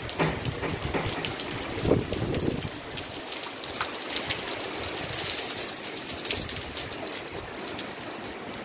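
Heavy rain falling: a steady hiss with many close drips and splashes.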